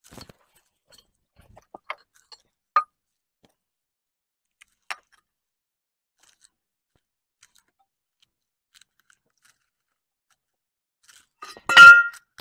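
A few faint, sparse clicks of steel parts being handled, then near the end a loud cluster of metallic clinks with a brief ring, as the parts of a bulldozer hydraulic cylinder rod assembly and hand tools knock together.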